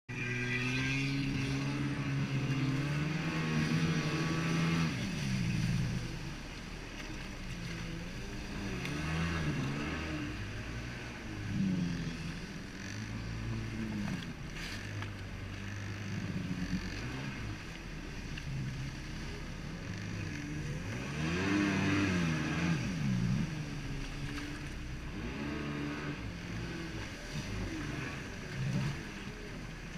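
Jet ski engine running at speed, its pitch rising and falling several times as the throttle is worked, over a steady hiss.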